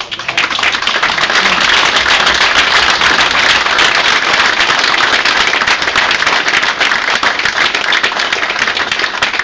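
Audience applauding: many hands clapping together, starting at once and holding steady and loud.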